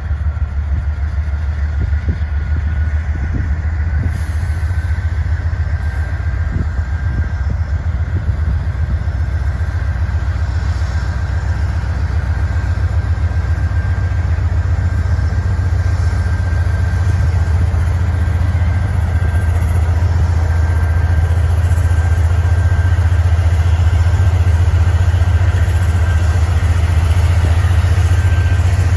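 Norfolk Southern diesel locomotives running, a deep steady engine drone with a thin whine above it, growing slowly louder as the locomotives draw nearer.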